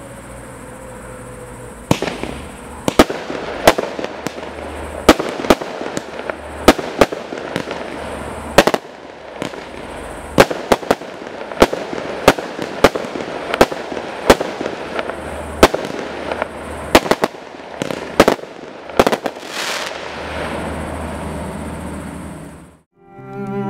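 A 30-shot 20 mm compact firework cake firing: about thirty sharp reports, one to two a second, over a steady crackle and hiss. The shots stop about 19 seconds in and the crackle of the last bursts dies away a few seconds later.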